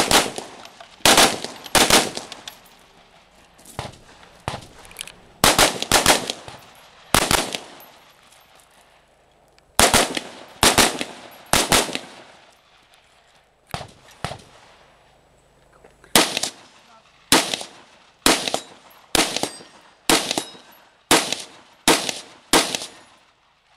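Rifle shots fired in a long string, many in quick pairs a fraction of a second apart, with pauses of one to two seconds between groups. The shots come closer together and more evenly, about one a second, in the last third.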